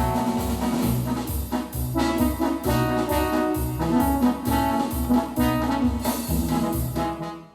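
Yamaha DX7 FM synthesizer playing a brass patch in a rhythmic riff over a bass line and a steady drum beat. It stops abruptly near the end.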